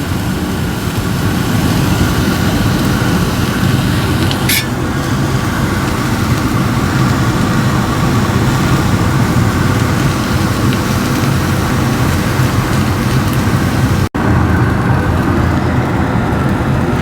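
Onions sizzling steadily in oil on a hot griddle flat top, with a steady low hum underneath. The sound drops out for a moment near the end.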